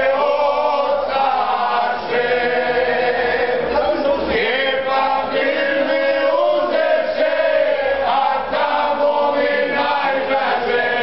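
A group of men singing a Croatian bećarac folk song together in full voice, long held notes in phrases broken by short breaths.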